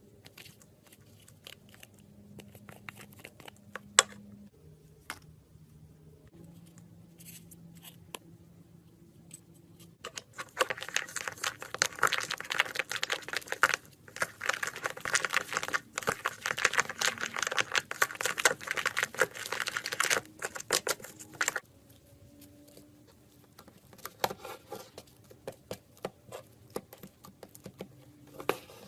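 Close handling noise: scattered clicks and pops, then about ten seconds of dense crackling and crinkling in the middle, then scattered clicks again.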